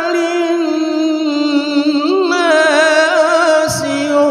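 A man reciting the Quran in the melodic tilawah style, in a high voice: he holds the long drawn-out vowel of "wa arsalnāka", with wavering, trilled ornaments through the middle and the pitch stepping down, then starts "lin-nāsi" near the end.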